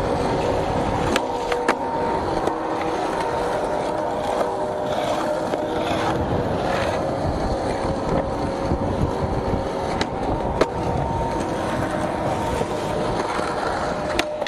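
Skateboard wheels rolling over pavement, with a few sharp clacks of the board striking the ground: two close together about a second in, two more about ten seconds in, and one near the end.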